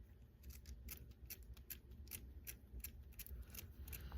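Faint, rapid clicking, about five clicks a second, as a part on a DNV9 night-vision bridge is twisted by hand to tighten it, each click a detent or ratchet step.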